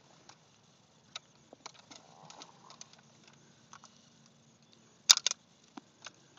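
Handling sounds from an SKS rifle's action in a bullpup stock: faint clicks and rattles, then two or three sharp metallic clacks about five seconds in as the bolt is worked to clear a stovepipe jam.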